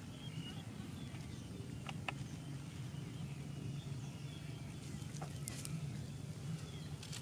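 Outdoor rural ambience: birds chirping faintly now and then over a steady low hum, with a few sharp clicks.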